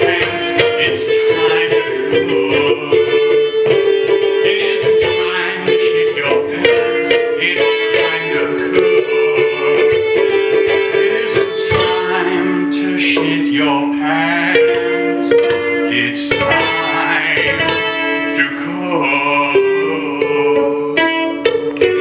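Live band music: plucked ukulele with voices singing over long held notes.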